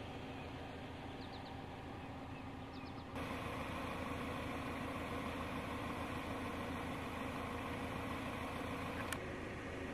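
Steady hum of an idling vehicle engine, which steps up louder at a cut about three seconds in. There are a few faint bird chirps before the cut and a single sharp click near the end.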